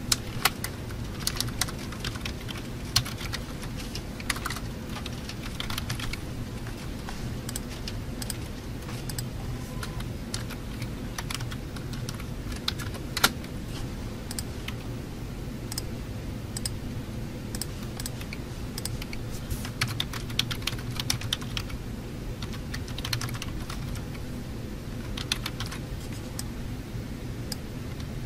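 Computer keyboard typing in short irregular runs of clicks, some louder than others, over a steady low background hum.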